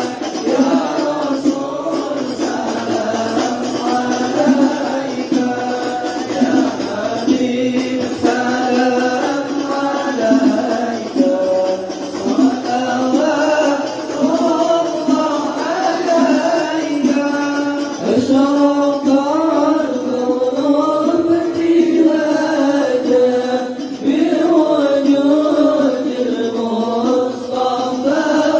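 A group of santri singing devotional Arabic sholawat together in unison in a flowing, melismatic chant, as sung at the mahallul qiyam, the standing part of a mawlid or manaqib recitation.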